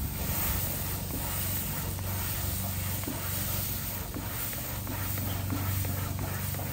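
Wet sponge head of a Grill Rescue brush scrubbed back and forth on a hot grill grate over charcoal, the water flashing to steam with a steady hiss and sizzle, over a low steady hum.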